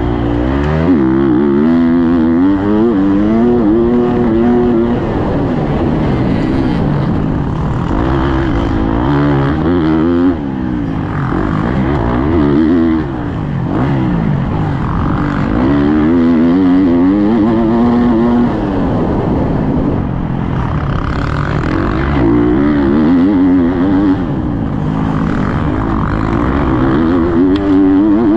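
Motocross dirt bike engine heard from the rider's helmet, revving up and falling back over and over as the throttle is opened and rolled off through corners and jumps, with brief dips where the throttle is chopped.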